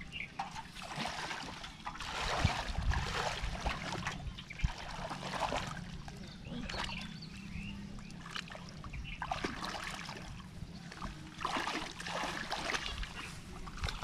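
Hands groping and splashing in shallow muddy pond water, with repeated spells of sloshing and dribbling about a second long each.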